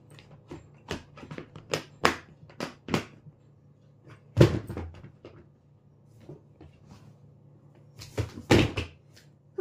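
Clear plastic storage boxes being closed and handled: a run of sharp plastic clicks as a lid is pressed on and latched, then two louder knocks, about four and eight and a half seconds in, as the boxes are moved and set down.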